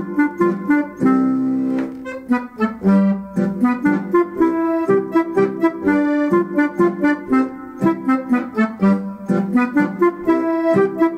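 Accordion with a Limex MIDI system playing a Bavarian Ländler in three-four time. The right hand plays the melody in a deep clarinet voice, and the left hand plays helicon-style bass and guitar-like chords in a steady oom-pah rhythm, with a held chord about a second in.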